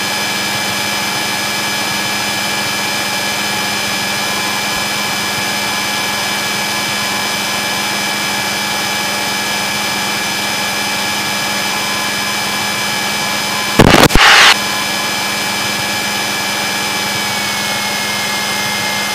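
Piper Warrior's four-cylinder engine running steadily, throttled back on final approach, heard from inside the cabin as a constant drone with a faint whine in it that dips slightly near the end. About fourteen seconds in there is one brief loud burst.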